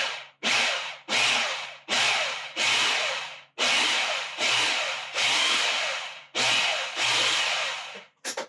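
Food processor pulsed about ten times in quick succession, each short burst of the motor and blade starting sharply and fading, chopping cooked lentils, oat flour and sautéed onions into a mixture that stays textured.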